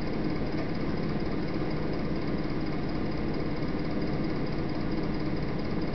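Steady low hum and hiss in the recording, with no other sound standing out.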